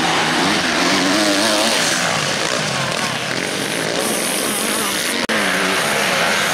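Motocross bike engines revving, their pitch rising and falling as the riders open and close the throttle, with a brief break in the sound about five seconds in.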